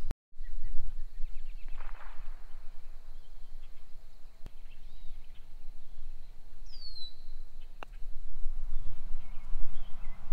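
Wind rumbling on the microphone over open-air ambience, with a bird's short descending chirp about seven seconds in and two sharp ticks, one about halfway through and one near eight seconds in.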